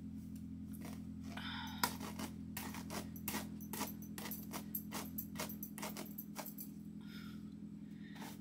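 Irregular rapid clicks and crackles of long synthetic wig hair being handled and finger-combed, over a steady low hum.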